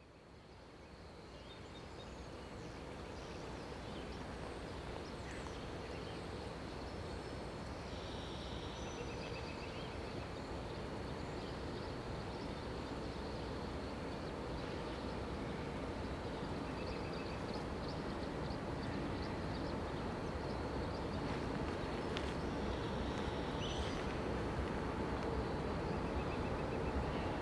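Low rumble of an approaching Norfolk Southern diesel freight train, fading in at the start and growing slowly louder, with birds chirping and a steady high insect drone over it.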